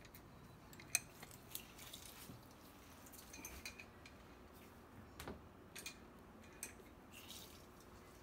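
Hinged hand-held lime squeezer pressing lime halves over a bowl: scattered faint clicks and clinks of the press, one sharper click about a second in.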